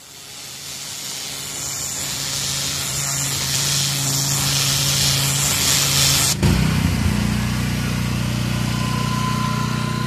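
High-pressure water jet hissing onto concrete block paving, with the pressure washer's motor and pump humming steadily underneath. A little over six seconds in, the hiss of the spray drops and the machine's hum grows louder.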